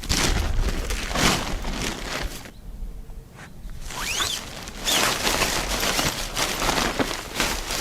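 Irregular rustling and crunching from camp gear being handled or from movement on the forest floor. A short high chirp comes about four seconds in.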